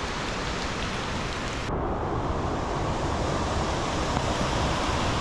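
Steady rushing of a waterfall together with heavy rain. About two seconds in, the high hiss suddenly drops away, leaving a duller, muffled rush.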